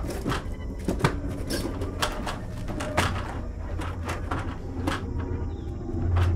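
Irregular knocking and clattering of things being knocked about inside a wooden shed, with a low rumbling drone that swells near the end.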